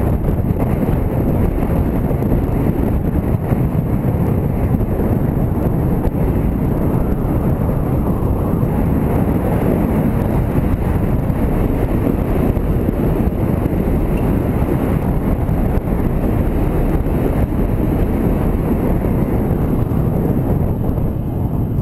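Riding a motorcycle: a steady rush of wind on the microphone over engine and road noise.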